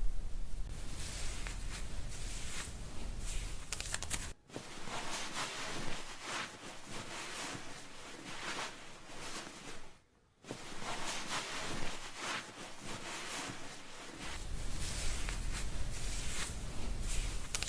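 Close-miked crackly rustling of hair being rubbed and scrubbed, in three stretches broken by a brief dropout and a short silence.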